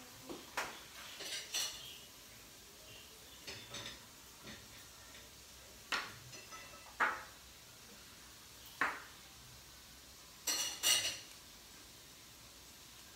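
Cookware and utensils clinking and knocking at the stove: scattered sharp clatters every second or two, the loudest a short cluster of ringing metallic clinks late on.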